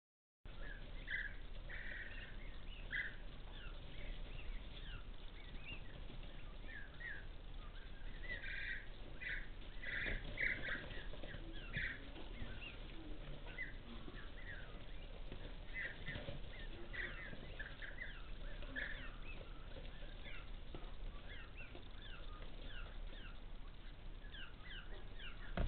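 A brood of young quail chicks and Showgirl chicks peeping: many short, high peeps, some in quick clusters, over a faint low hum.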